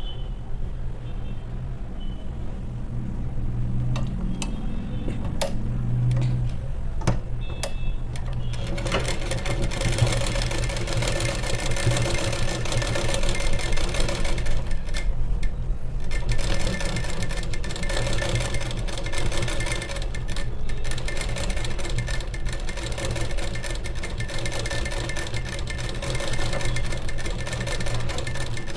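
Sewing machine stitching through blouse fabric, running a second line of stitches along a seam to take up a loose spot. It starts after a few seconds of clicks from handling, then runs steadily with brief pauses.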